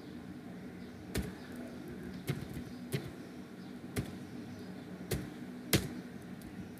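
Computer keyboard keystrokes and mouse clicks while a spreadsheet formula is entered: about six sharp clicks spaced roughly a second apart, over a low steady hum.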